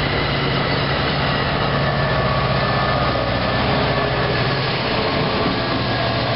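NJ Transit passenger train passing close by: the steady rumble of its multilevel coaches' wheels on the rails, with the steady drone of its diesel locomotive's engine.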